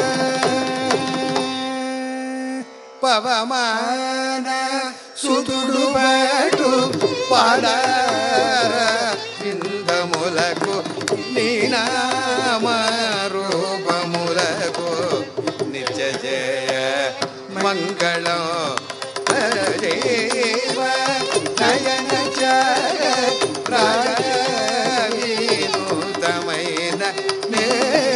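Carnatic music in raga Nadanamakriya: voice and violin carry a melody full of sliding, oscillating ornaments over a tanpura drone, with mridangam and kanjira keeping the rhythm. A long held note at the start breaks off about three seconds in, and the ornamented melody then resumes.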